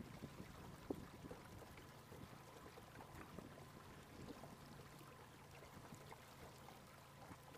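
Near silence: faint water lapping against the boat with a low steady hum, and a few small clicks, the sharpest about a second in.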